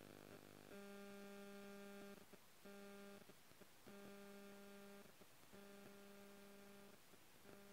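Near silence with a faint electrical hum, a steady buzzing tone that cuts in and out every second or so.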